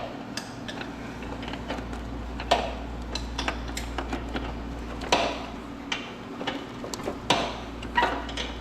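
Irregular metallic clicks, clinks and knocks of hand tools and parts being worked in a car's engine bay, with a few louder knocks, over a steady low hum.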